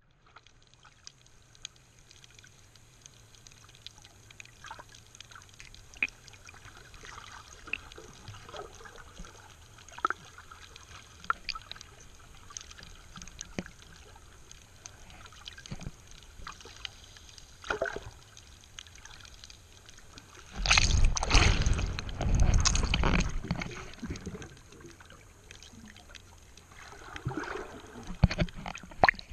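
Muffled underwater sound picked up by a submerged camera: a low hiss scattered with sharp clicks and crackles, and two loud rushing surges of water noise about two thirds of the way through.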